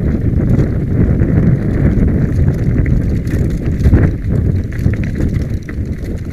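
Mountain bike descending a rocky trail: a continuous rumble of tyres rolling over loose stones, with rapid knocks and rattles of the bike jolting over rocks. Wind buffets the camera microphone. The noise eases slightly near the end.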